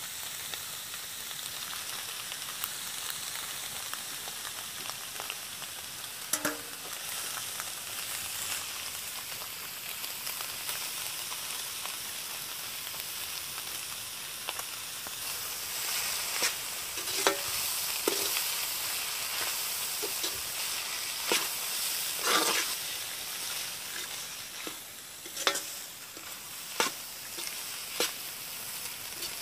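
Goat blood frying in a large iron wok, with a steady sizzling hiss. Scattered clinks and scrapes of a metal perforated ladle stirring against the pan come more often in the second half.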